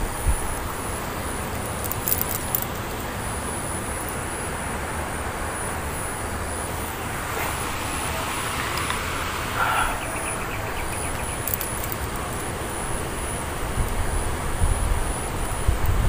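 Steady background hum of distant road traffic, with a few light clicks from handling the fishing line and reel.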